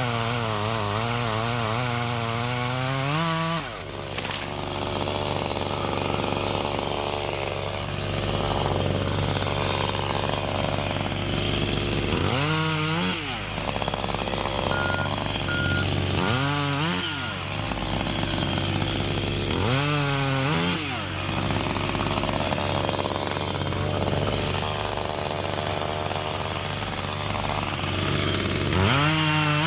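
Electric chainsaw running and cutting into acacia wood. Its motor whine wavers at first, then it bites into the wood after a few seconds. It speeds up again several times, each time with a quick rising whine.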